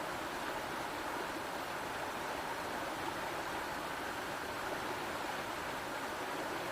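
Steady rushing of river water, an even noise with no bird calls standing out.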